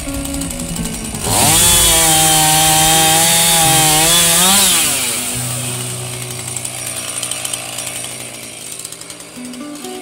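Chainsaw revving up about a second in, running at high speed cutting into an oak log for about three seconds, then winding down to idle. Background music plays throughout.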